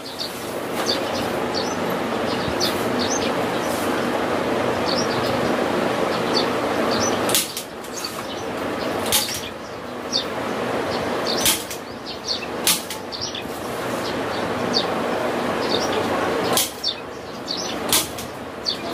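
Rustling and crackling of a white adhesive strip being peeled and pressed along a wooden window frame, broken by several sharp snaps. Short high chirps repeat in the background.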